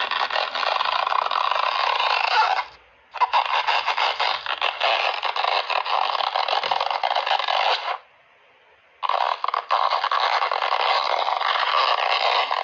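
Bolero (short shrug-style garment) being stretched and pulled, giving a dense crackly scraping noise. It comes in three long pulls, with brief breaks about two and a half seconds in and about eight seconds in.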